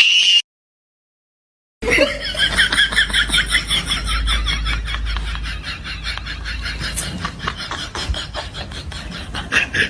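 A person laughing hard in a long run of quick, breathy pulses, starting after a short silence near two seconds in.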